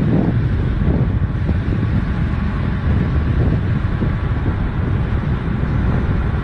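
Steady wind buffeting on the microphone of a camera moving at speed, a continuous low rumble.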